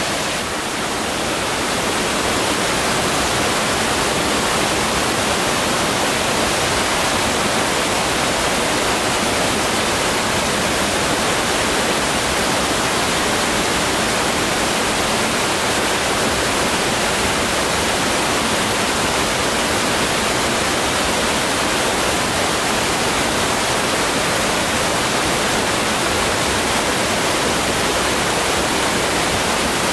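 Steady, even rushing of falling water, without a break.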